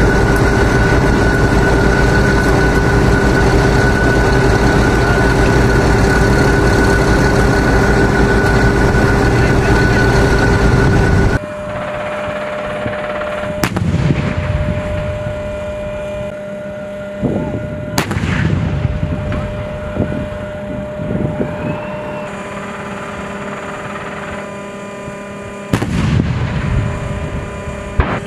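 An armoured vehicle's engine runs loud and steady with a constant whine, then stops abruptly about eleven seconds in. After it, an M1A2 Abrams tank fires its 120 mm main gun three times, a few seconds apart, each shot a sharp crack with a rolling tail.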